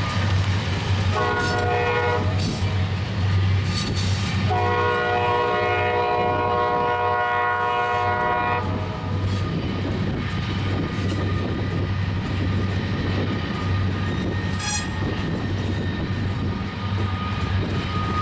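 Freight locomotive air horn sounding a short blast about a second in, then a long blast of about four seconds. Underneath is the steady rumble of loaded grain hopper cars rolling past, with wind buffeting the microphone.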